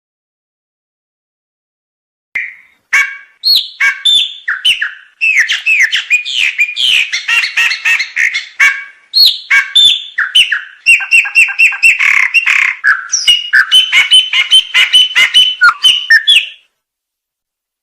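A songbird singing a fast, varied song of chirps, trills and whistled notes, starting about two seconds in and cutting off suddenly near the end. It is a recorded tutor song (masteran) of the kind played to caged songbirds to teach them new phrases.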